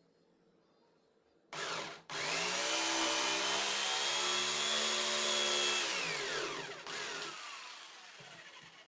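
Electric jigsaw blipped on about a second and a half in, then run up to speed with a rising whine and sawing steadily through a wooden board for about four seconds. The motor then winds down with a falling pitch, is triggered once more briefly, and coasts down before the sound cuts off.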